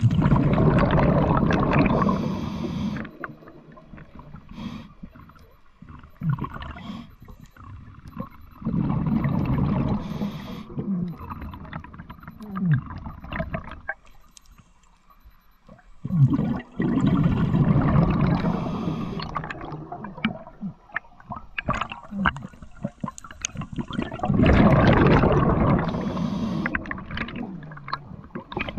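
A scuba diver breathing through a regulator underwater: each exhalation sends out a long burst of bubbling exhaust, four of them about eight seconds apart, with quieter stretches between.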